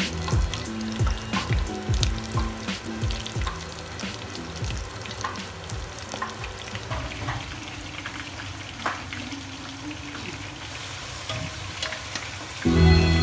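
Chicken wings deep-frying in a pot of hot oil: a steady sizzle with dense, irregular crackling pops. Music with guitar cuts in loudly near the end.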